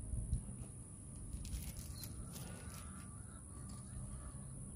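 Quiet outdoor ambience: faint birds calling in the distance over a low steady rumble.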